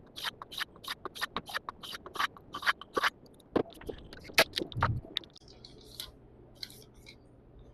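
S35VN steel chef knife edge rubbed on a coarse 220-grit Diasharp diamond plate to dull it: quick rasping scrapes, about five strokes a second, then slower, uneven strokes, fading to a faint hiss after about five seconds.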